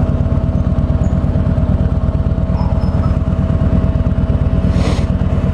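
Kawasaki Voyager 1700's water-cooled V-twin engine running at a steady, unchanging speed, with a brief hiss a little before the end.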